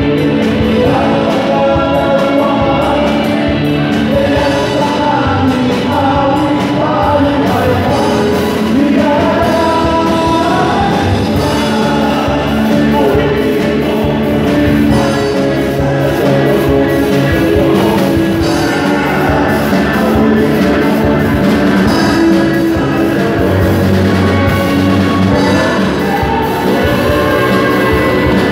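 Live band music with several men singing together into microphones, loud and continuous, over a drum kit and electric guitar.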